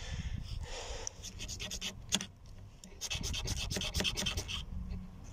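A striker scraped hard along a ferrocerium fire-starting rod in two bouts of quick rasping strokes, the second starting about three seconds in, throwing sparks onto cotton in a tin to light it.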